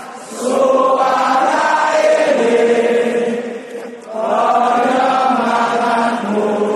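Large stadium crowd singing a slow club anthem in unison, in long held phrases. The singing dips briefly about four seconds in, then swells again.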